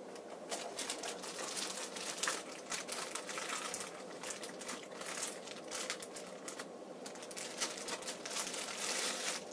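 Thin clear plastic bag crinkling in an unbroken run of short crackles as hands work it open to free a vinyl power cord.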